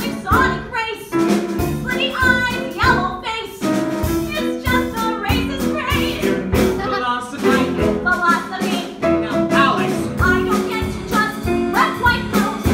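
A woman singing a musical-theatre song live, accompanied by a small band with guitar and drum kit keeping a steady beat.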